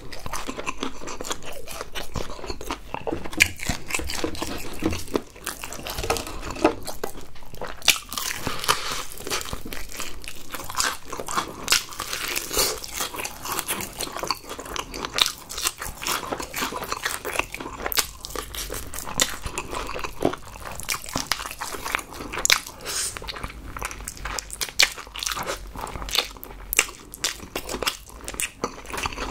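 Close-up crunching bites and chewing of crispy seasoned fried chicken, a dense run of sharp crackles from the breading.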